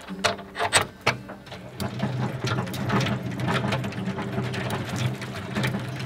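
Hand-cranked two-frame honey extractor spinning comb frames in its stainless-steel drum, its crank gears clicking and whirring. It grows louder after the first couple of seconds as it picks up speed.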